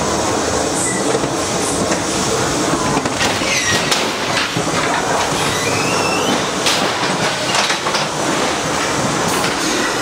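Ghost-train car rattling along its steel track, with a few short wheel squeals near the middle and several sharp knocks.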